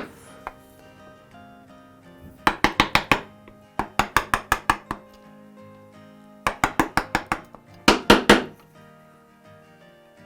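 Quick runs of sharp hammer taps on wood, about eight a second, in four bursts with pauses between, the last few strikes the heaviest, over steady background music.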